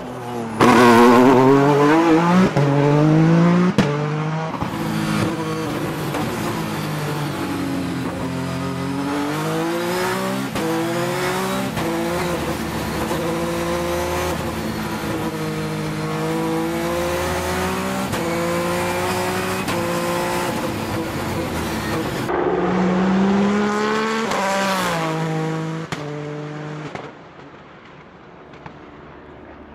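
Peugeot 208 T16 Pikes Peak race car's twin-turbo V6 at full race pace, its pitch repeatedly climbing through the gears and dropping at each shift or lift for a corner. Near the end it falls to a much fainter sound.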